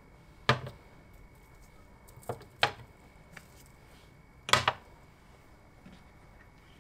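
Small glass dessert cups set down one at a time on a glass refrigerator shelf: three sharp glass-on-glass clinks about two seconds apart, with a lighter tap just before the second.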